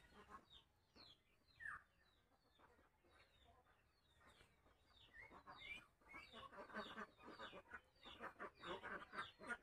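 Chickens clucking faintly: a run of short repeated calls that starts about five seconds in, after a few seconds of near silence.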